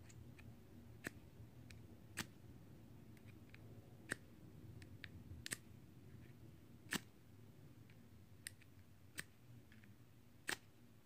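Small ferro rod on a paracord survival bracelet struck with its metal scraper to make sparks: about eight short, sharp scrapes at irregular intervals of one to two seconds.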